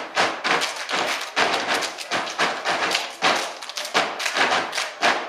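Step team stepping: feet stomping on a stage floor and hands clapping in a fast, driving rhythm, a few hits a second, stopping near the end.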